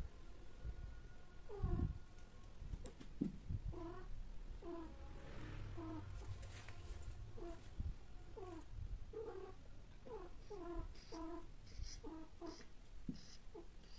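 Domestic cat yowling during mating: a string of short calls, each falling in pitch, one or two a second and coming closer together in the second half.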